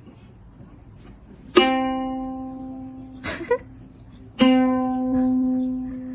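Two single plucked notes on a string instrument, like a ukulele, about three seconds apart, each ringing out and slowly fading over a low background hum. A brief faint sound comes between them.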